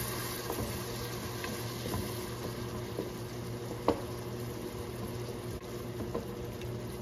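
Curry masala of onion, tomato and a little added water simmering and bubbling in a pot, stirred with a wooden spatula that clicks against the pot a few times, most sharply about four seconds in. A steady low hum runs underneath.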